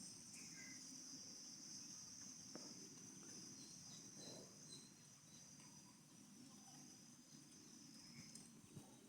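Faint outdoor rural ambience: a steady high-pitched drone that fades out about halfway through, under a low background hum, with a few faint scattered short sounds.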